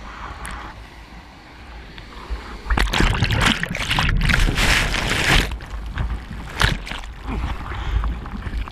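Surf water sloshing around a GoPro in the sea. About three seconds in, a loud rush of churning whitewater sounds as a breaking wave takes the camera under, followed by scattered splashes as it resurfaces.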